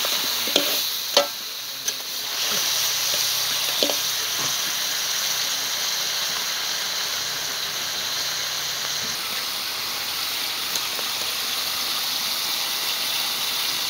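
Goat meat sizzling steadily as it fries in a large metal wok, with a few sharp clinks of a metal ladle against the pan near the start.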